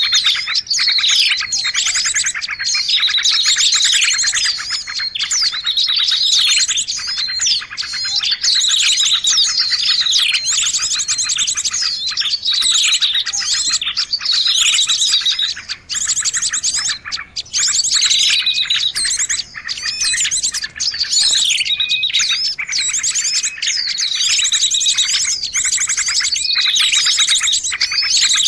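Dense, continuous chorus of many small songbirds chirping and trilling over one another, with rapid high trills and quick down-sweeping calls. It is a bird-lure (pikat) recording, a noisy mix of small-bird calls played to draw small birds in.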